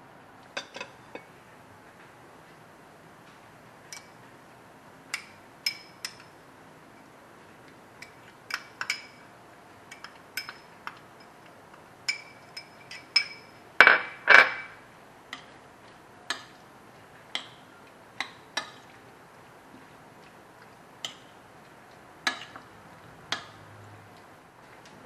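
Scattered sharp clinks and taps of kitchen utensils and a glass jar against a ceramic plate, with two louder clanks about halfway through.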